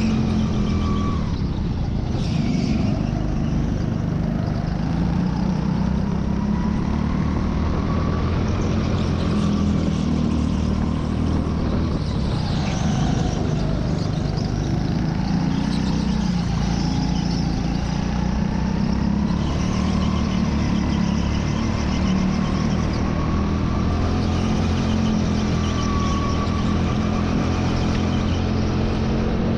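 Go-kart running continuously at racing speed, heard from the driver's seat. Its pitch rises and falls every few seconds as it speeds up and slows for the corners.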